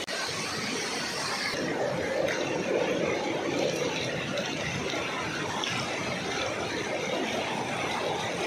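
Small waterfall: water rushing and splashing down a bare rock slab in a steady noisy rush, a little fuller from about two seconds in.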